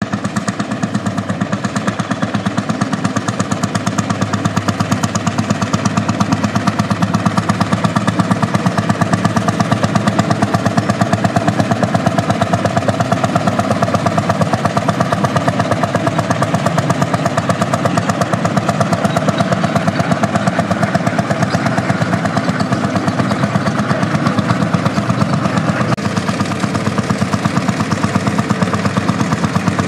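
1937 Lanz Bulldog Model N tractor's single-cylinder two-stroke hot-bulb engine running as the tractor drives along, with a steady, rapid beat of separate firing pulses.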